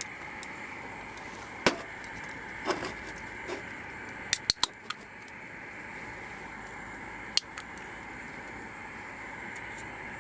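A few sharp clicks and taps, three in quick succession about four and a half seconds in, over a steady background hiss.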